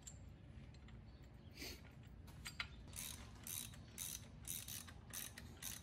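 Ratchet wrench clicking in short back-and-forth strokes, about two a second, starting about a second and a half in. These are bolts on the supercharger mounting bracket being run down tight.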